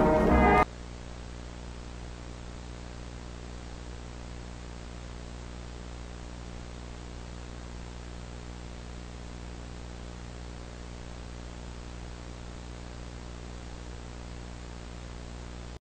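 Orchestral brass music cuts off suddenly less than a second in, giving way to a steady static hiss with a low electrical hum underneath.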